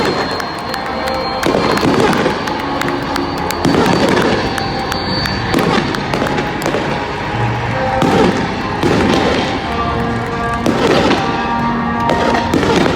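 Fireworks bursting, with bangs and crackling every second or two, while music plays along.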